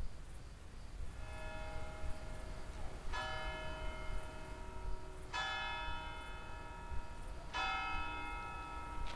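A church bell strikes four times, about two seconds apart, each stroke ringing on until the next, over a low steady rumble.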